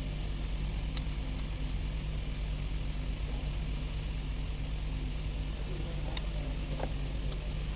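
A motor vehicle engine idling steadily, with a light metallic click about a second in and a few faint clinks near the end.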